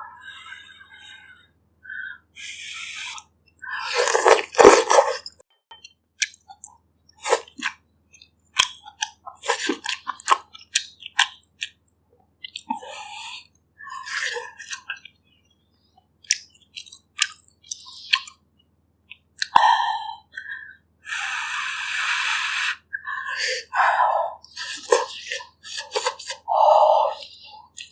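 Close-miked chewing and wet mouth sounds of someone eating bak kut teh, pork ribs in herbal broth. Many short sharp clicks are mixed in, and a longer noisy stretch of about two seconds comes a little past the middle.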